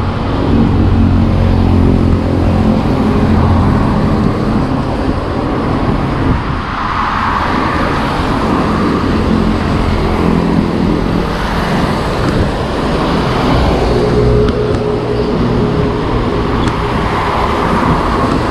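Loud, continuous road traffic noise: motor vehicle engines and tyres on the road, with a steady engine hum in the first few seconds and vehicles swelling past around the middle.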